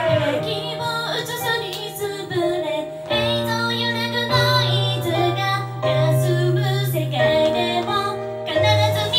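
J-pop idol group performing live: female voices singing over a pop backing track with sustained chords and a bass line.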